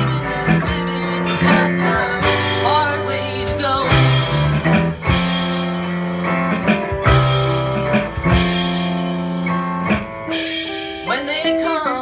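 A band playing an instrumental passage of a song: guitar over bass notes and a drum kit.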